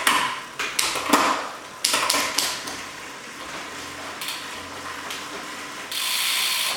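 Sharp clicks and knocks in the first couple of seconds, then lighter ticks and a short steady hiss near the end, from hands working a bicycle's brake calipers and levers.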